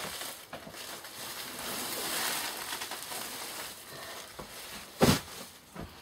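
Heavy woven sacks being dragged and shifted, rustling and scraping against each other, with a sharp thump about five seconds in and a lighter knock near the end.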